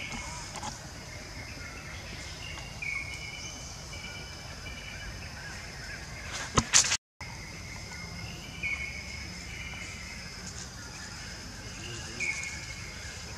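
Forest ambience: a steady high insect drone with a bird repeating a short whistled note every few seconds. Two sharp clicks a little past the middle are the loudest sounds, followed by a brief gap in the sound.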